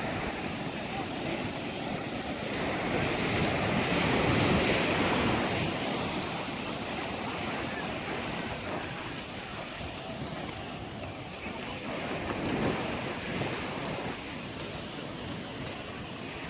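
Sea waves washing onto the beach, swelling loudest about four seconds in and again briefly about twelve seconds in, with wind rumbling on the microphone.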